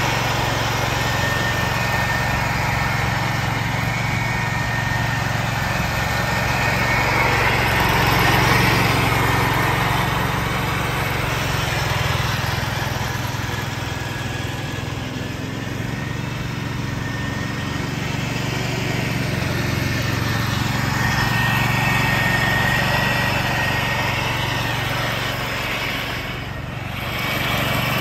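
1969 Ford 140 garden tractor's engine running steadily under load, with the mower deck's blades shredding dry leaves in a continuous rushing hiss. The sound swells and eases a little as the tractor moves about, briefly dropping near the end.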